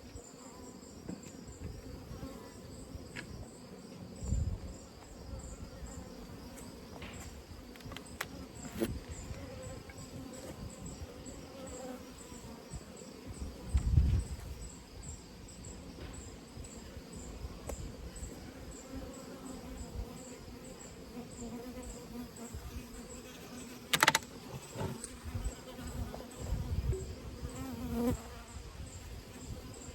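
Honeybees buzzing in a steady hum around the hive, with insects chirping in an even high-pitched pulse above it. A few low thumps break in, and there is a sharp knock about two-thirds of the way through.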